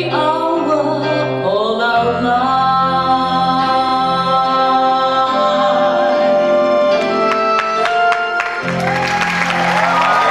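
A woman sings a ballad live with instrumental accompaniment, holding long sustained notes. Applause breaks out near the end.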